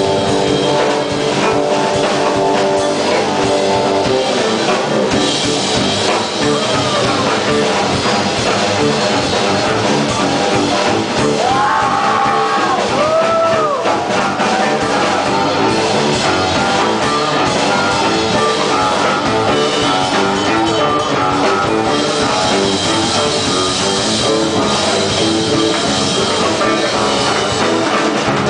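Live jazz-fusion band playing loudly: drum kit with busy cymbals, electric bass, electric guitar, saxophone and trumpet. Long held notes near the start and a few bending, swooping notes about halfway through.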